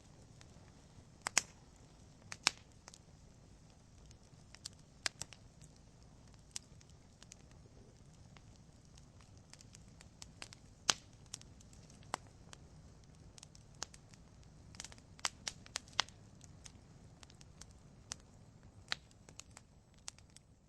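Wood fire burning in a fireplace: logs crackling with irregular sharp pops over a low, steady rush of flames.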